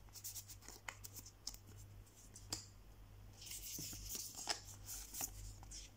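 Pokémon trading cards being handled: faint scattered clicks and taps as cards are set down and picked up, with a brief rustle of cards sliding against each other a little past halfway.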